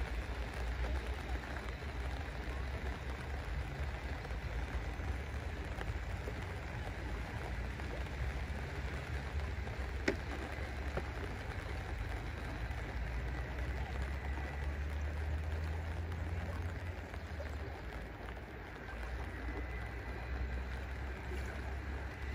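Light rain falling on a lake's surface, an even hiss, with a steady low rumble underneath. A single sharp click comes about ten seconds in.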